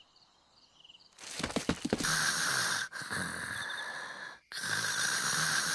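Cartoon stomach-growl sound effect: after a moment of near silence and a few clicks, a raspy, hissing growl that cuts off and starts again twice.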